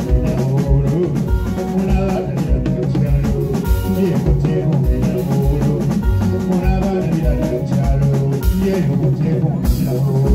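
Live band music on stage: a drum kit keeps a steady beat under bass, guitars and keyboard.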